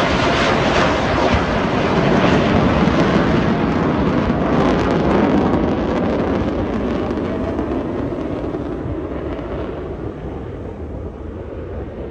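F-35 fighter jet's engine, a loud, steady jet noise as the aircraft flies slowly overhead with its landing gear down, gradually fading over the last several seconds.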